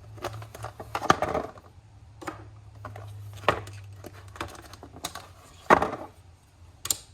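Plastic dash switches and trim of a Toyota Tacoma's lower switch panel being pried and pushed out, giving irregular clicks, snaps and knocks, the loudest a little under six seconds in.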